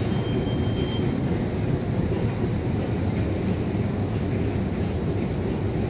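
Steady low rumble of subway station ambience, with a short, thin high tone a moment in that lasts under a second.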